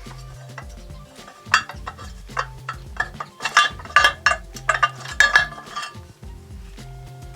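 Metal clinking and scraping as a VAZ classic camshaft is drawn out of its bearing housing, in a cluster of irregular clinks over background music with a steady beat.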